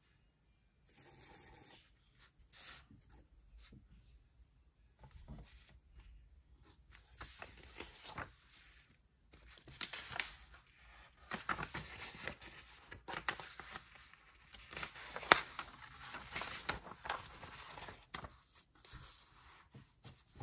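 Desk study sounds: a pen scratching across paper and sheets of paper being handled, with light clicks and small knocks on the desk, and one sharper knock about halfway through.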